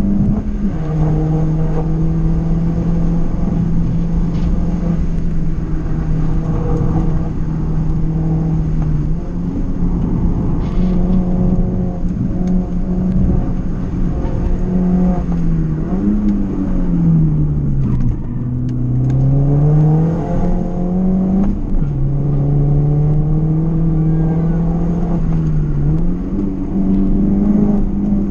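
Hill-climb race car's engine heard from inside the car, pulling hard through the gears: the note climbs steadily and then drops suddenly at each upshift, about half a second in and twice more in the second half. About two-thirds of the way through the revs sink low and climb again, as the car slows for a bend and accelerates out.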